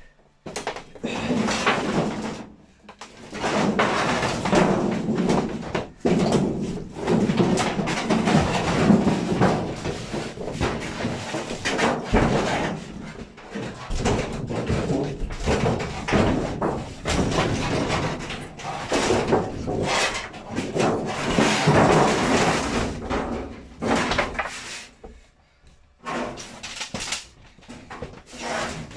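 Thin metal sheeting being ripped up, dragged and thrown down: irregular scraping, crumpling and clanging bangs, with short pauses between bursts.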